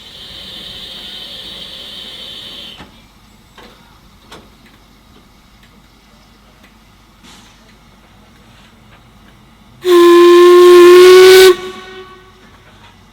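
Steam hissing for about three seconds, then, later on, one loud blast of about a second and a half on an LMS Stanier Black 5 locomotive's steam whistle, its pitch rising slightly.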